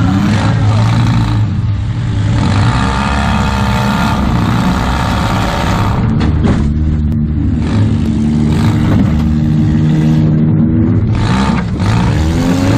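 A Toyota Camry demolition derby car's engine, heard from inside the gutted cabin, revving up and down as the car manoeuvres, with a steadier stretch in the middle. There is one brief knock about six and a half seconds in.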